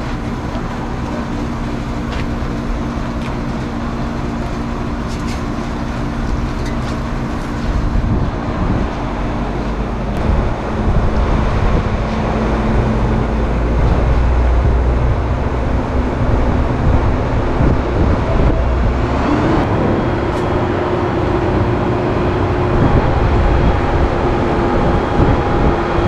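Boom crane truck's engine running steadily to drive the hydraulic boom while it lifts an air-conditioner condenser unit, with a deep rumble that grows heavier partway through. The engine pitch rises about three quarters of the way through as it revs up.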